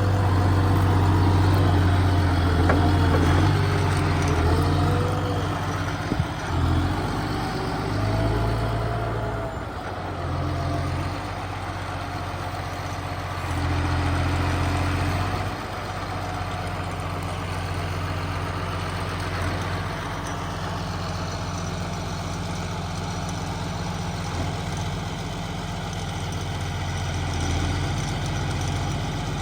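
A heavy engine runs steadily throughout. Its hum is strongest in the first few seconds and rises and falls in level several times, with a short knock about six and a half seconds in.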